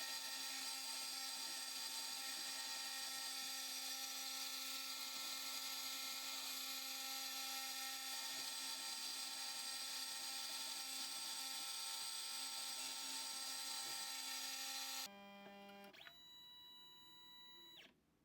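Faint, steady high-pitched whine of the Prometheus PCB mill's 50,000 RPM spindle as it mills a copper-clad circuit board. It cuts off abruptly about fifteen seconds in, leaving near silence.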